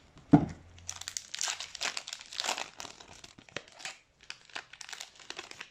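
A sealed trading-card pack wrapper being crinkled and torn open, in a string of rustles. A sharp thump comes about a third of a second in.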